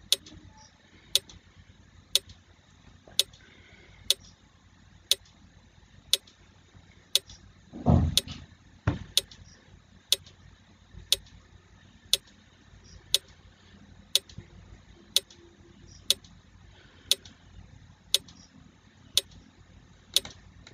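Countdown-timer clock ticking, one sharp tick each second, about twenty ticks in all. A short low thump about eight seconds in.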